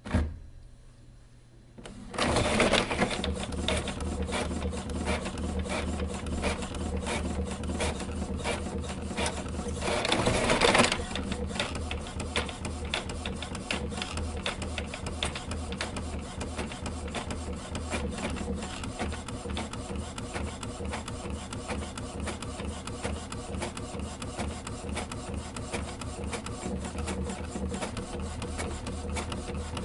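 A small machine starts about two seconds in and runs with a fast, even clatter over a low hum, briefly louder around ten seconds. It is preceded by a single sharp click.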